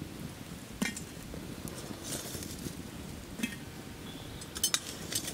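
Burning embers being set down on the cast-iron lid of a Dutch oven over a campfire: a few sharp clinks and knocks, spread apart, over a faint steady crackle.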